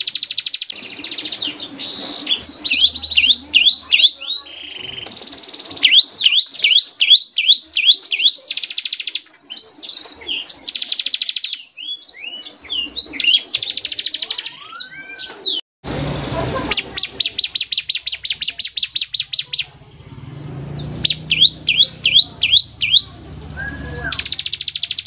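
Bar-winged prinia (ciblek) song: fast, dense trills in long runs alternating with quick series of sharp downward-slurred notes. The song breaks off for a moment about two-thirds of the way through, then resumes with a long, even trill.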